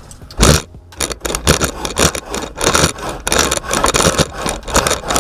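Hand saw cutting through a metal shower-door top rail held in a plastic miter box: rasping back-and-forth strokes about two a second, starting about half a second in.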